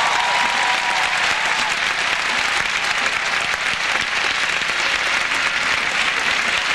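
Large theatre audience applauding steadily, welcoming a star's entrance.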